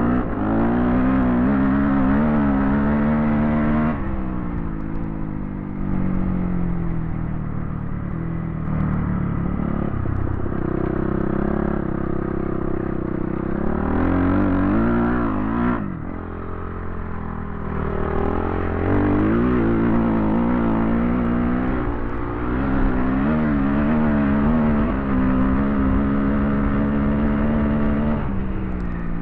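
Dirt bike engine heard close up from a helmet-mounted camera, revving up and dropping back again and again as the rider accelerates and eases off. The throttle is cut sharply about four seconds in and again about sixteen seconds in.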